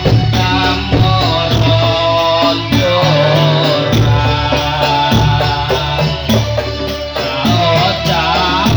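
Dolalak dance accompaniment music: a sung melody over drums and other percussion keeping a steady beat.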